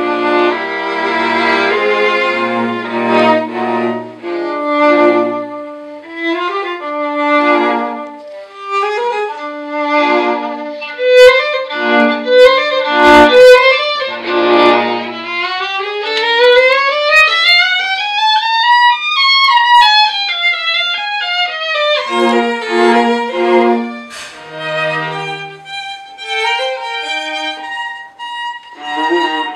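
String quartet playing, the violins bowing a lively passage. About two-thirds of the way through, a run climbs steadily in pitch and then comes back down, and a few sharp clicks sound about halfway through.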